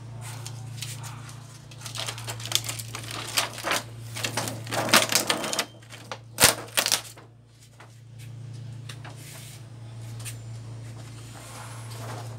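Thin plastic reflector sheet being lifted off an LED TV backlight panel: a rapid run of crackles and clicks for several seconds, ending in one sharp snap, over a steady low hum.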